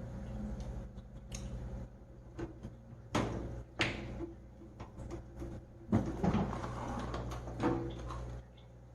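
Scattered clicks and knocks of computer hardware being handled and fitted into a PC case, with sharper clacks about three and four seconds in and a louder knock about six seconds in.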